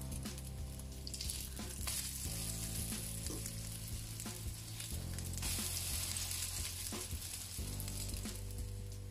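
Cauliflower fritters sizzling in hot oil in a nonstick frying pan as they are flipped with a fork, with light clicks of the fork against the pan. The sizzle swells about halfway through as a fritter is turned over.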